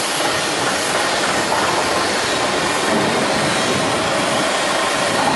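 Forklift running as it drives forward carrying a drum grab on its forks: a steady, even mechanical noise with no clear pitch.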